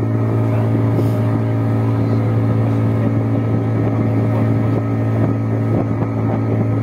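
A wooden fishing boat's engine running steadily under way, a constant low drone, with water rushing along the hull.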